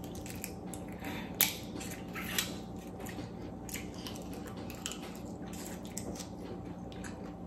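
Close-up eating sounds of a person biting and sucking on a piece of shrimp: scattered wet smacks and small clicks, the sharpest about a second and a half in and another a second later, over a faint steady hum.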